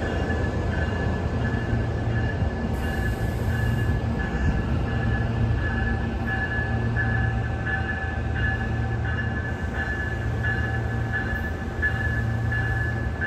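Electric commuter train (an RTD Silverliner V multiple unit) running slowly through the station: a steady low electric hum with a high tone that pulses about every two-thirds of a second.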